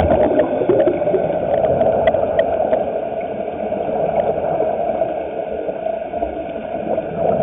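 Air bubbling out of a surface-supplied diving helmet, heard underwater as a steady gurgling rush with faint scattered clicks.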